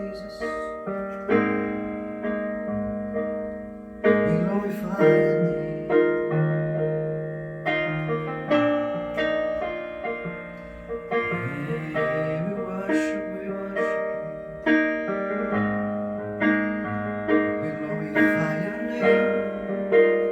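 Solo electric piano or keyboard playing slow, sustained worship chords, each chord struck and left to ring.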